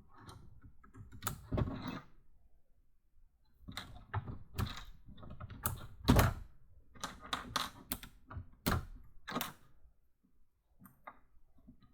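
Plastic LEGO Technic pieces being handled and pressed together: irregular sharp clicks and light rattles in bursts, with short pauses between.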